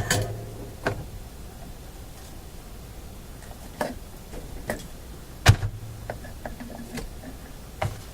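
Irregular clicks and knocks of small hand tools working on wiring in a tube radio chassis, the loudest about five and a half seconds in.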